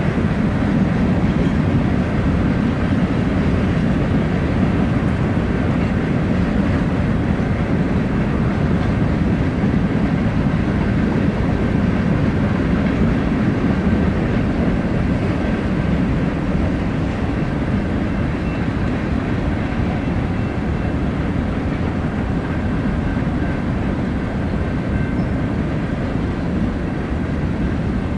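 BNSF freight train's cars rolling past over a grade crossing: a steady, loud rumble of wheels on rail, easing slightly in the second half.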